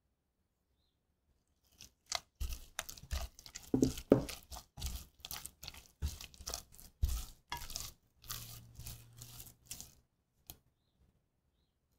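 Silicone spatula mixing beaten egg into choux pastry dough in a stainless steel saucepan: irregular wet squelching strokes, with the spatula scraping the pan. They start about two seconds in and stop shortly before the end.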